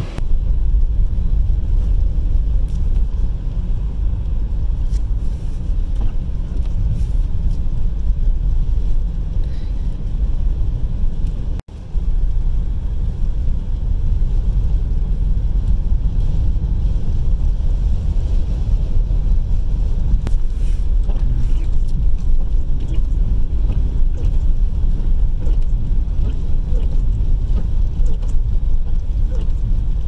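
Steady low rumble inside a car's cabin driving through a blizzard: road and wind noise, with strong winds buffeting the car. It breaks off for an instant a little under halfway through, then resumes.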